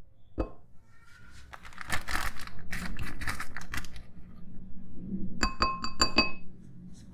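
Plastic detergent packet crackling while a plastic spoon scoops powder from it, then the plastic spoon tapping the rim of a glass bowl about five times in quick succession, the glass ringing with each tap.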